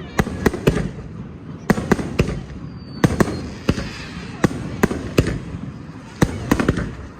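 Fireworks going off: sharp bangs in quick clusters of two to five, about once a second, over a low rumble, with a brief high whistle about three seconds in.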